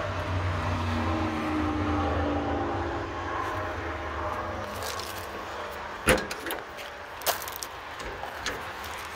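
Low steady vehicle hum that fades after the first few seconds. Then two sharp knocks a little over a second apart, and a few lighter clicks.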